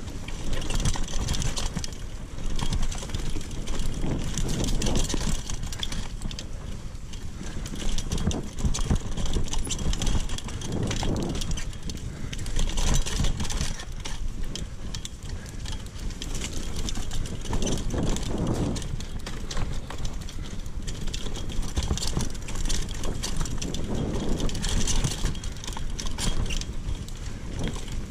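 Mountain bike ridden along a dirt trail: tyres running over the ground and the bike rattling and knocking over bumps, with wind buffeting the action camera's microphone, the noise swelling and easing every few seconds.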